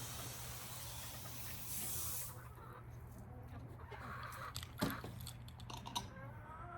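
Chickens clucking quietly, with short wavering calls near the end. A hiss stops about two seconds in, and there is a single knock about five seconds in.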